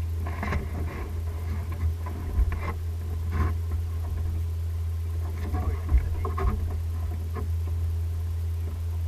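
A steady low hum throughout, with scattered light knocks and taps as someone shifts and kneels on a boat deck.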